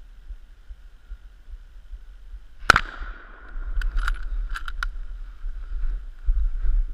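A single close rifle shot at a wild boar about three seconds in, the loudest sound, followed within two seconds by a few sharp clicks, with low wind and movement rumble on the microphone afterwards.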